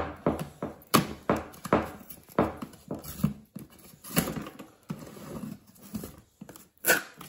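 Fingers picking and scratching at the taped end flap of a cardboard toy box, with irregular taps and small knocks on the box.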